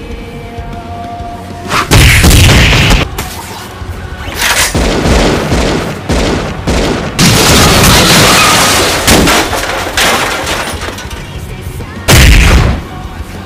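Animated fight sound effects over background music: sudden loud booms and impact hits, the heaviest about two seconds in and again near the end, with a long rushing blast in the middle.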